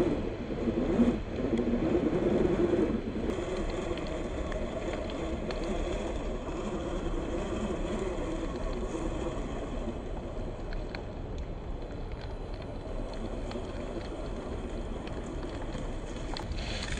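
Electric drivetrain whine of a 1/10 scale Axial SCX10 II RC crawler with an 80-turn motor, crawling off-road. It is louder for about the first three seconds, then runs quieter and steady.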